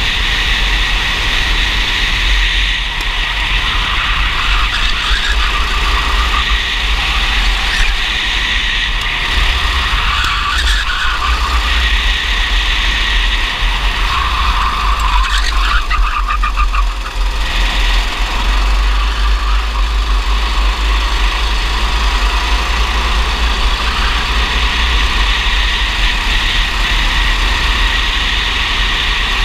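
Racing kart's engine running hard at speed, heard close from on board with a heavy low rumble of wind and vibration. The engine note shifts as the kart goes through corners, most noticeably about halfway through.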